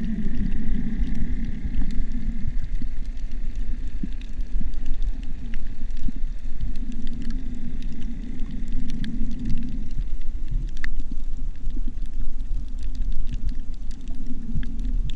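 Underwater ambience picked up by a GoPro held just below the surface on a shallow reef: a steady muffled low rumble of moving water, with scattered faint clicks and crackles.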